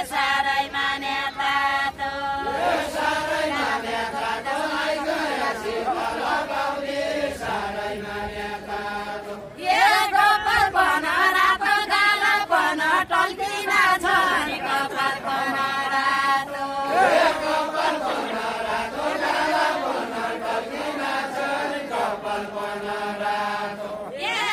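Deuda folk song sung unaccompanied by a mixed group of men and women in long, drawn-out chanted phrases. A louder new phrase starts about ten seconds in.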